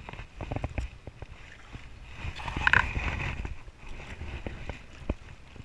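Wind buffeting the microphone, with scattered clicks and knocks of rod and reel handling while a hooked fish is fought to the boat. About two and a half seconds in there is a louder stretch with a brief squeal.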